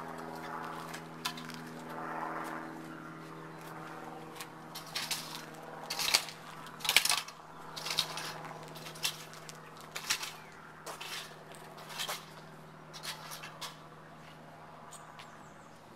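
Push broom sweeping polymeric joint sand across concrete pavers in short, irregular scraping strokes, the sand being worked into the paver joints. A steady low motor hum runs underneath, stronger in the first few seconds.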